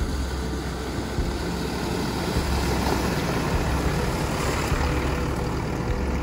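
Four-wheel-drive ute driving through a shallow creek crossing: engine running with water splashing off the tyres, getting louder about two seconds in as it passes close by.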